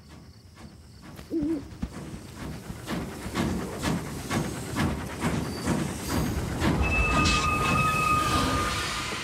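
Cartoon sound effects: a brief wavering owl hoot about a second in, then a steam-style train approaching with rhythmic chugging and hissing steam that grows louder. Its whistle blows one steady note for about a second and a half near the end.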